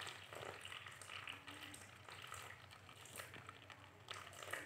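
Faint trickling of water: water poured from a metal jug onto bare soil in a cut plastic bottle, with muddy runoff carrying washed-away soil draining from the bottle's neck into a plastic cup.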